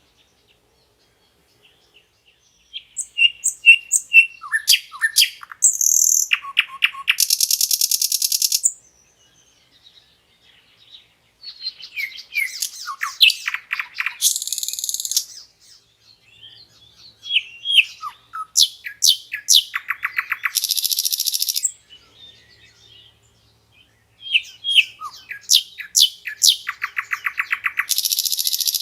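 Common nightingale singing: four varied song phrases separated by short pauses, several of them ending in a fast, even run of repeated notes.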